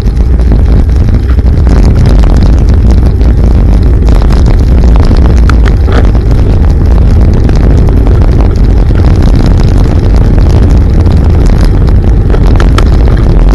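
Loud, steady wind buffeting and rumble on a cycling action camera's microphone while riding a bicycle at speed on a wet road.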